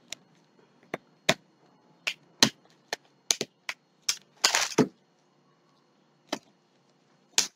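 Scissors snipping at a small cardboard retail box: a series of sharp, irregular clicks, with one longer scraping cut about four and a half seconds in.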